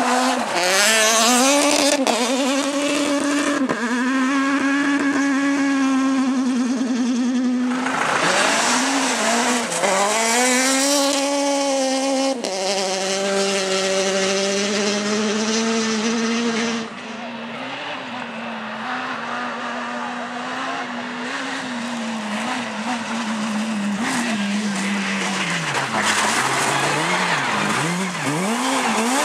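Rally car engine revved hard through a corner on a loose dirt stage, its pitch climbing and dropping again and again with gear changes and throttle lifts. The first car is a Suzuki Ignis S1600; a second rally car takes over near the end.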